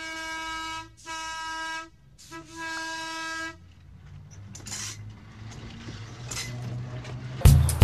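Train horn sounded three times, each blast about a second long, the last a little longer. After it the rumble of the approaching train slowly grows louder, and music starts loudly just before the end.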